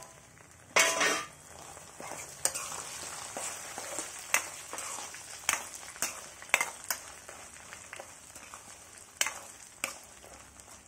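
Cashews and almonds frying in hot sesame oil with mustard seeds, cumin, lentils and dried red chillies, stirred with a spoon: a steady sizzle with scattered sharp pops and clicks, and a louder burst of sizzling about a second in.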